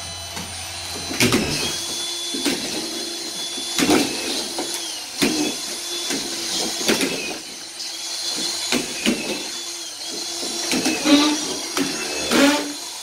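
Cordless autofeed drywall screwdriver running and driving collated screws into plasterboard ceiling sheets. Its motor whines steadily and sags briefly as each screw seats, with a sharp click roughly every one to two seconds.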